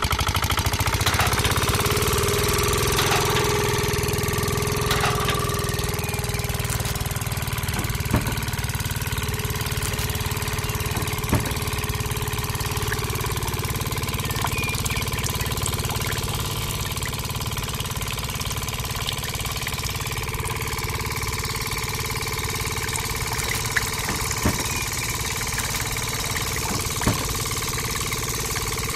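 Small engine running steadily, as the miniature model single-cylinder engine belt-drives a toy press, with a few sharp clicks now and then.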